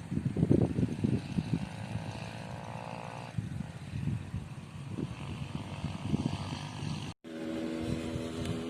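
Gusty low rumble on the microphone with a faint engine hum. After a short break near the end, a small engine drones steadily.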